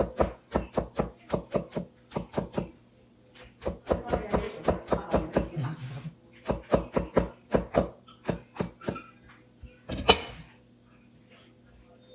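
Kitchen knife slicing eggplant on a cutting board in quick, even strokes of about five a second, in runs with short pauses. One louder knock comes about ten seconds in.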